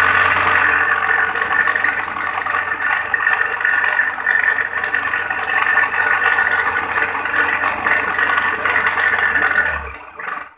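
Electric coconut grater running, its motor and spinning grating head giving a loud, rough, rattling whine over a steady hum; the noise is the sign of a worn, damaged bearing (laher). It cuts out near the end.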